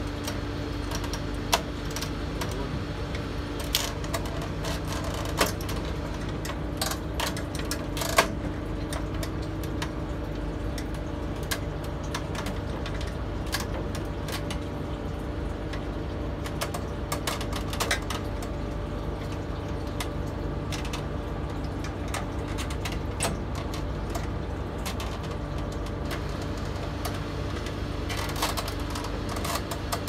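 Irregular sharp clicks and taps of a thin tool prying and snapping at the plastic inner frame of a microwave oven door, the loudest about eight seconds in, over a steady low hum.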